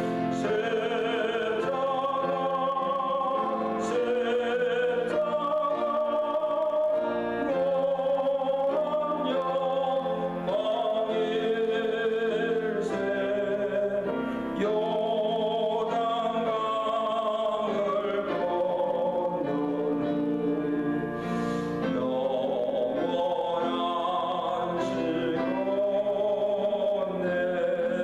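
A hymn sung in slow, held notes with musical accompaniment.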